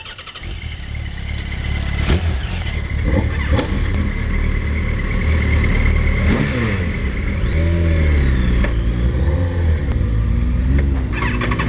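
Sport motorcycle engines running close by as a group of bikes pulls away, growing louder over the first couple of seconds, with revs rising and falling.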